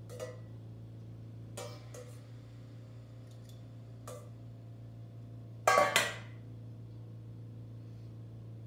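Metal tongs clinking against a stainless steel mixing bowl: a few light clinks, then a louder double clatter about six seconds in, over a steady low hum.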